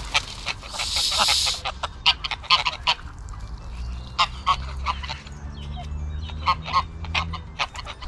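Geese honking: many short, loud calls in irregular bursts, with a brief rush of noise about a second in.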